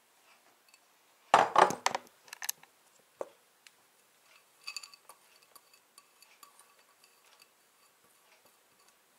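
A ceramic cup knocking and clinking against a glass mixing bowl as flour is tipped in. A loud clatter of knocks comes about a second in, then two single knocks, then lighter clinks with a brief glassy ring near the middle.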